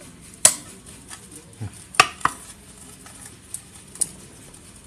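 Sharp metallic clinks of steel parts and tools being handled while fitting the kick-starter gears into a Yamaha Mio's CVT cover. The loudest comes about half a second in, two more follow close together about two seconds in, and lighter ones come near the end.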